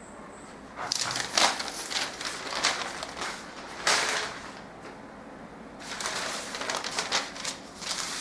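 Brown pattern paper rustling and crackling as it is handled: pieces gathered up off the cutting board, then a paper pattern laid down and smoothed flat by hand. Starts about a second in, pauses briefly after about four seconds, and resumes near six seconds.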